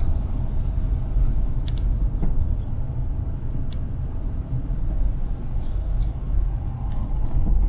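Car driving slowly: a steady low rumble of engine and road noise, with a few faint clicks.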